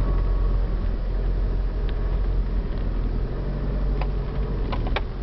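Land Rover engine and drivetrain running in low gear as the vehicle crawls over a rocky track, heard from inside the cab as a steady low drone. A few sharp knocks and rattles from stones and bodywork come in near the end.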